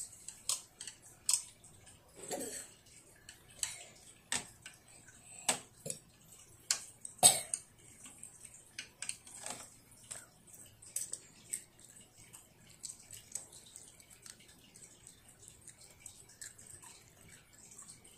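Scattered light clicks and knocks of chopsticks, a plastic plate and a plastic cup against each other and the table as a child eats, with one louder knock about seven seconds in. The clicks thin out and grow fainter in the second half.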